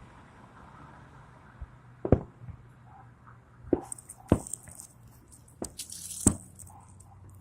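Fireworks bursting: five sharp bangs spread over a few seconds, the first about two seconds in, with a crackling hiss between the later bangs.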